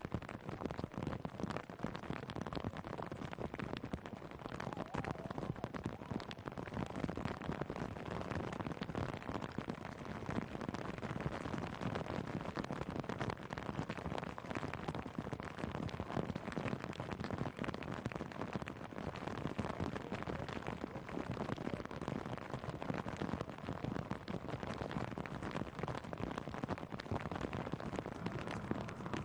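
Heavy rain falling steadily: a dense, even crackle of drops striking surfaces.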